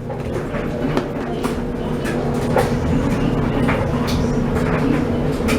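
Whirlpool clothes dryer running with a steady hum, with irregular clicks and knocks over it from the tumbling load.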